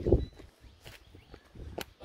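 Footsteps on a dirt and stone hillside path: one heavy step at the start, then a few lighter scuffs and small clicks.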